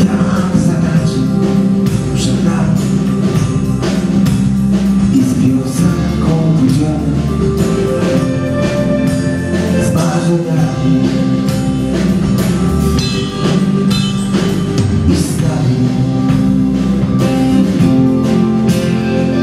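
Live band playing an instrumental break: acoustic guitar, keyboard and drum kit, with the drums keeping a steady beat.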